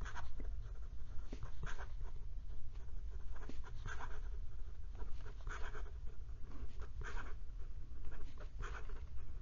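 Steel mini fude nib of a fountain pen scratching across notebook paper in a string of quick, short strokes as a name is written over and over at speed.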